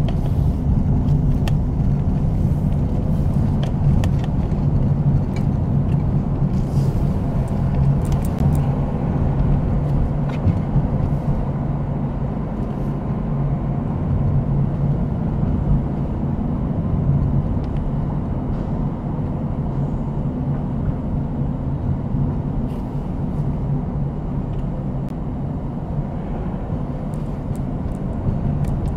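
Steady low drone of a car's engine and tyres at slow driving speed, heard from inside the cabin. A few faint clicks and knocks come through, mostly in the first third.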